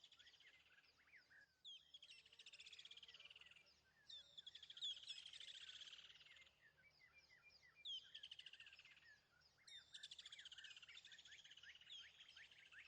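Small birds chirping in quick, falling trills, run after run overlapping, with a faint low hum underneath.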